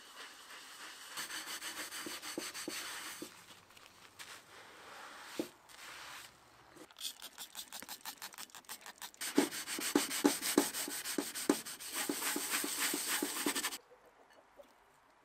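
Scrubbing the burnt, foam-covered bottom of a stainless steel pot: a sponge rubbing first, then a hand brush in quick back-and-forth strokes about three a second, which are the loudest part. The scrubbing stops shortly before the end.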